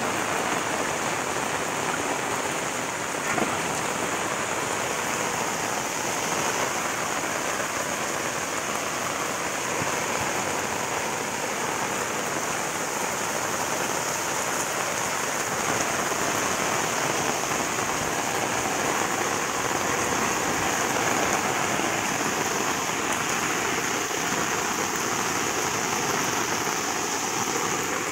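Heavy monsoon rain falling steadily: a dense, even hiss of rain on the surfaces around.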